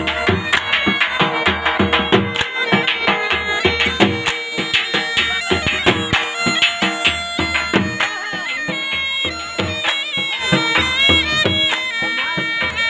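Saraiki jhumar folk music: a reedy wind instrument plays a wavering melody over a steady drone, driven by regular drum beats.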